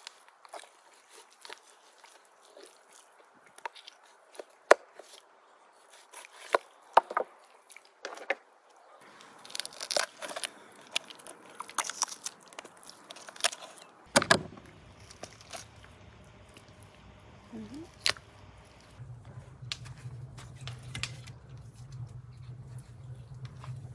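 Knife cutting through a raw goose, with sharp cracks and snaps, then poultry shears snipping through its bones. About fourteen seconds in, split firewood logs are pulled from a woodpile, with a few wooden knocks over a low steady hum.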